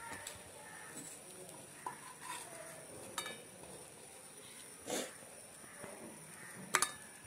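Spatula scraping and knocking in a frying pan while pieces of fried fish are lifted out: a few separate scrapes and clinks, one ringing briefly, the loudest near the end.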